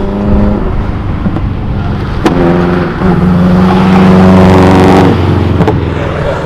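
A car's engine pulling hard under load on an autocross run. It gets louder from about two seconds in, holds a steady high note, and drops away sharply about five seconds in as the throttle comes off. There is a sharp click about two seconds in.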